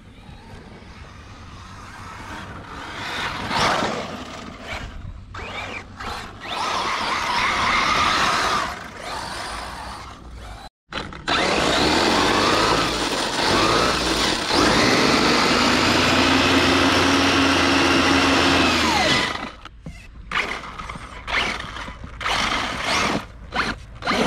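ARRMA Mojave radio-controlled desert truck being driven hard through sand: its electric motor whines up and down in pitch with the throttle over the hiss of tyres churning and throwing sand. It swells and fades as it passes close, with the longest, loudest stretch in the middle.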